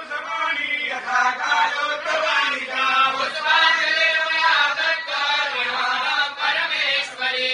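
Hindu priests chanting a Sanskrit stuti (hymn of praise) to the goddess Chandi together.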